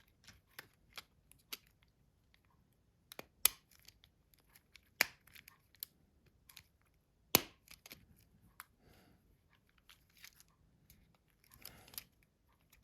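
Scattered sharp clicks and taps of a Nokia C2-06's plastic housing parts being handled and pressed together, the loudest about three and a half, five and seven and a half seconds in, with faint rustling in between.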